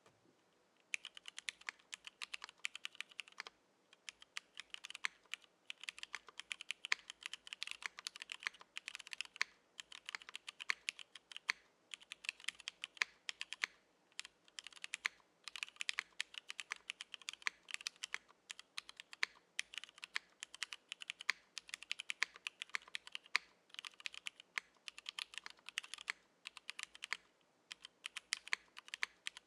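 Typing on a Keycult No.2/65 mechanical keyboard with vintage Cherry MX Black linear switches, a carbon fibre plate and GMK keycaps. The keystrokes come in fast runs broken by short pauses, and start about a second in.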